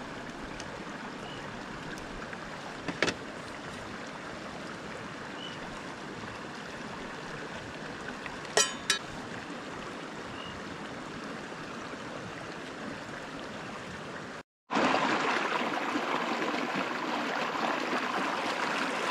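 River water flowing steadily, a constant rushing hiss. A single sharp click about three seconds in, and a short rattling clatter of clicks around eight to nine seconds in. Near the end the sound drops out for an instant and the water comes back louder.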